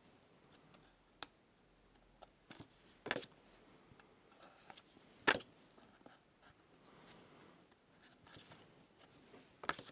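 Stiff printed cards being handled and shuffled on a table: soft rubbing of card, with a few sharp taps, the clearest about three and five seconds in.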